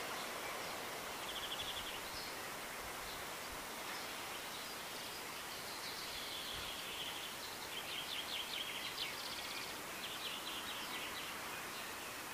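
Outdoor countryside ambience: a steady hiss of open air, with a few short, rapid, high trills coming and going, most of them in the second half.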